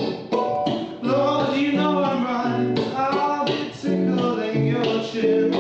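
Live singer-songwriter song: a voice singing a drawn-out, wavering melody over acoustic instrumental accompaniment, with chords struck about once a second.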